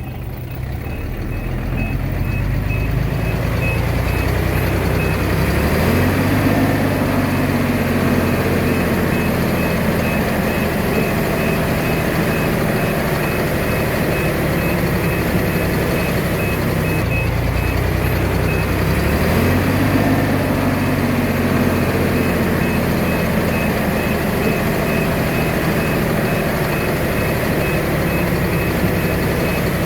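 Komatsu D21A bulldozer's diesel engine running under load, rising in pitch twice as it works, with a reversing alarm beeping rapidly and evenly over most of it.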